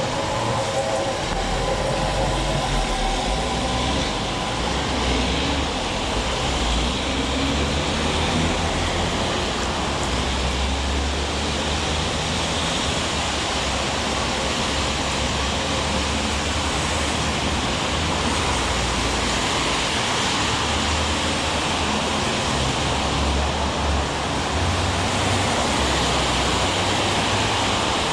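Heavy rain falling steadily, a continuous even hiss, with an uneven low rumble underneath.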